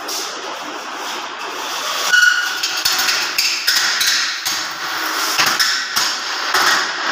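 Irregular knocks, a few a second at times, like hammering, over a steady hiss, with a brief ringing tone about two seconds in.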